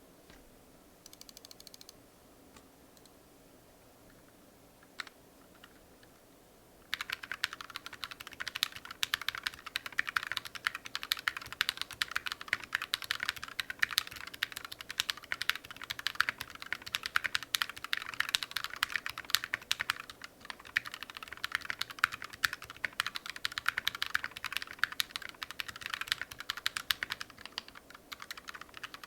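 Mechanical keyboard with stock, unlubricated Akko Matcha Green switches being typed on in a fast, steady stream of key clacks. The typing starts about seven seconds in, after a near-quiet start broken by a few faint clicks.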